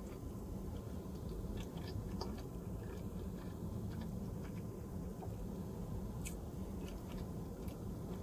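A person chewing a mouthful of sushi burrito with her mouth closed: soft, scattered wet mouth clicks over a steady low hum.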